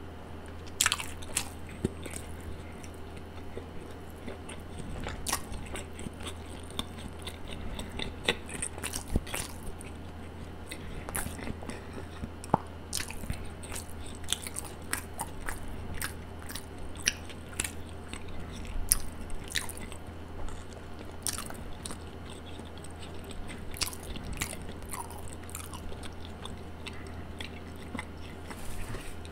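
A person chewing a mouthful of toasted sandwich close to the microphone: irregular wet mouth smacks, clicks and soft crunches. A steady low hum runs underneath.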